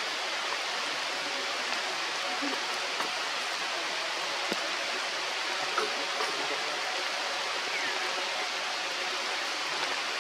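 Steady, even rushing noise of water, with a few faint ticks.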